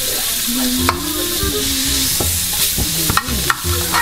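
Butter sizzling and frying in a hot frying pan, a steady hiss. A utensil stirring it gives a few sharp clicks and scrapes against the pan.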